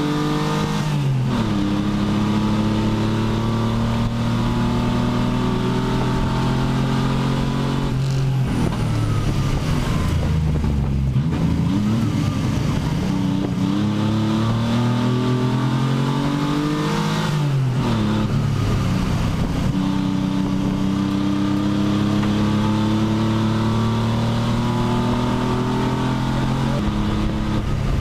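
Pontiac Fiero race car's engine heard from inside the cockpit, pulling hard on track. Its pitch falls off sharply three times as it comes off the throttle and winds back up between, then holds steady over the last stretch.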